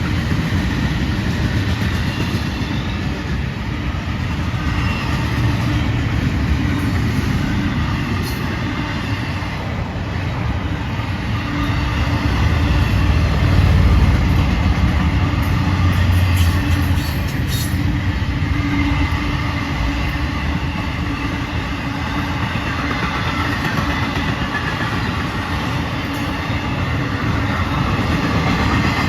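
Freight train cars rolling past on the rails: a steady low rumble of wheels on track that swells a little midway, with a few sharp clicks from the wheels.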